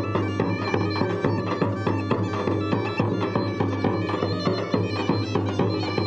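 Bulgarian gaida bagpipe playing a fast, ornamented folk melody over a steady low drone.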